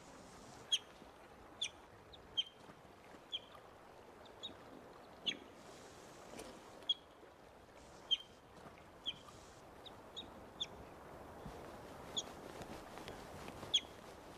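Young North American river otter giving repeated short, high-pitched chirps, about one a second at irregular intervals: frantic contact calls of a lost, injured youngster crying for its family's attention.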